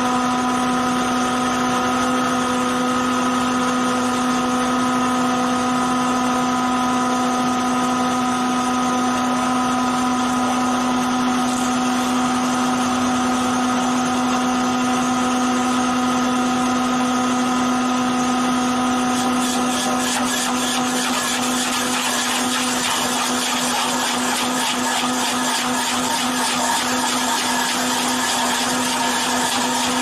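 Hydraulic stump auger running with a steady whining hum. About two-thirds of the way in the screw bit bites into the tree stump, and a rough, rapidly pulsing grinding of wood being chewed into chips joins the hum.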